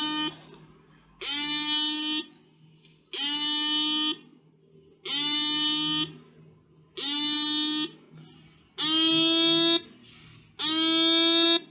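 Seven-transistor alarm circuit sounding its fourth alarm pattern: a buzzy pitched beep about a second long, repeated six times at about two-second intervals, each beep rising slightly in pitch.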